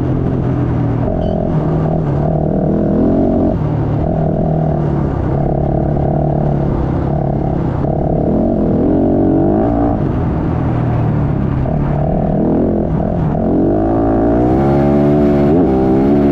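Rally motorcycle engine pulling hard on a gravel road, the revs climbing and dropping again with each gear change, over wind and road rush. Near the end the revs rise and fall quickly several times.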